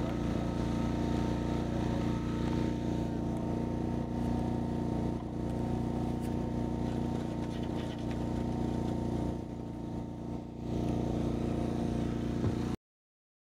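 An engine running steadily at an even speed, a droning with a steady hum in it; it cuts off abruptly near the end.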